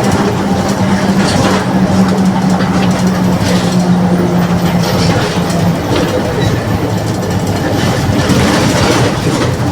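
Mercedes-Benz OF 1721 BlueTec 5 bus in motion, its rear differential droning with a steady whine-like tone over road rumble and body rattles. The drone stops a little under six seconds in, while the running noise carries on.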